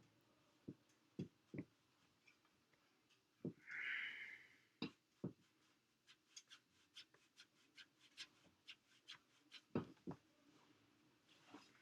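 Faint handling noises of fabric being folded and creased by hand: scattered soft taps, a brief rustle about four seconds in, then a run of small quick ticks.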